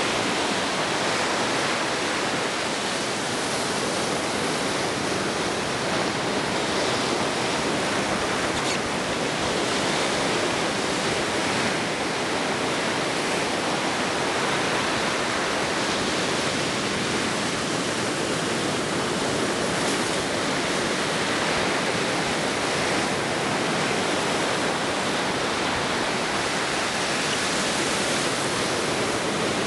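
Ocean surf breaking along the shore, heard as a steady, even wash of noise with no distinct single waves.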